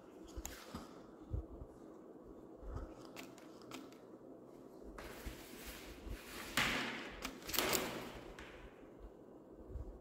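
Two kittens play-fighting on a tile floor: scattered light taps and scratches, then a few seconds of louder scuffling and rustling as they tumble against a plastic basket, loudest about six to eight seconds in.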